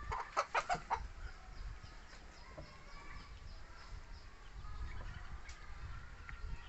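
A quick run of four or five short, high animal calls in the first second, followed by fainter scattered calls.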